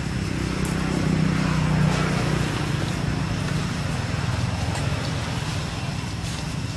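Low engine hum of a passing motor vehicle, swelling a second or two in and then slowly fading.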